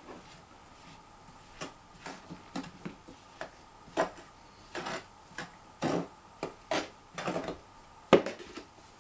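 Packed casting sand being dug and broken out of a metal foundry flask with pliers: scattered scrapes, crumbling and metal clinks, with a sharp knock near the end as the flask is handled.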